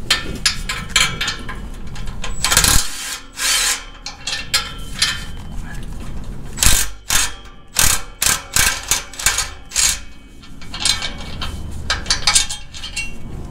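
Exhaust spring hangers being unhooked from a C5 Corvette's midpipe: irregular metallic clicks, clanks and scrapes of the springs and tools against the exhaust. Sharper strikes ring out a few seconds in.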